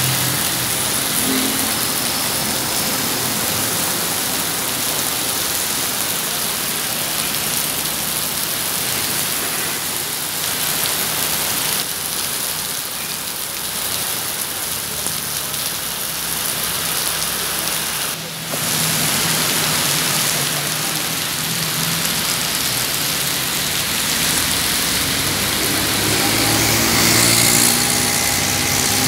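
Heavy rain pouring onto pavement and a flooded street, a steady hiss. A city bus's engine comes up under it near the end as the bus passes.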